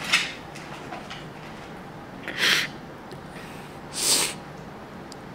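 A woman's sharp, noisy breaths: one brief one at the start, then two longer ones about two and a half and four seconds in. They come while she is upset and collecting herself.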